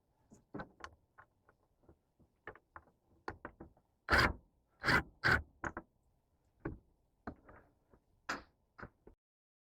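Irregular knocks and clicks of hand work on a boat's dock light fixture as it is taken off, with three louder knocks near the middle. The sound stops abruptly shortly before the end.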